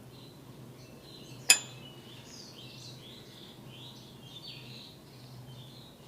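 A single sharp click with a short ring about a second and a half in, over a run of small birds chirping.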